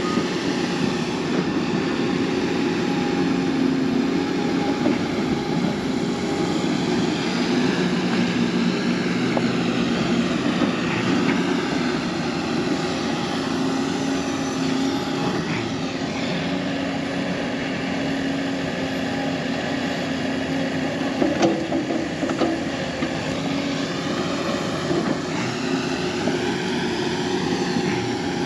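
Hyundai HX330L excavator's diesel engine running steadily under load while the machine digs into a dirt pile, with a few brief knocks along the way.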